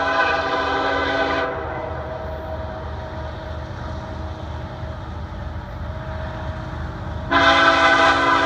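Diesel locomotive air horn on an approaching train: a long blast that cuts off about a second and a half in, then a quieter stretch of low rumble, then a second long blast starting near the end.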